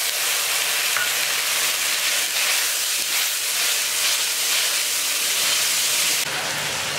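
Chopped onions and ginger paste frying in hot oil in a pan, a steady dense sizzle that eases slightly near the end.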